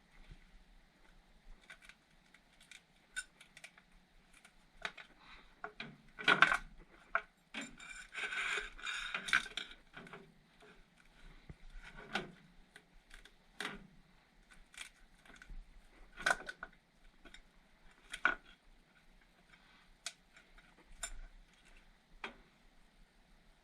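Scattered clicks and knocks of hand tools and metal furnace parts being handled, with a longer stretch of scraping or rustling about eight seconds in.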